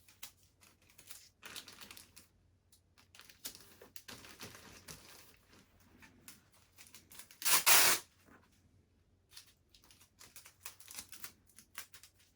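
Sticky tape being pulled off the roll and torn while a plastic mailing bag crinkles. The longest, loudest pull comes about seven and a half seconds in.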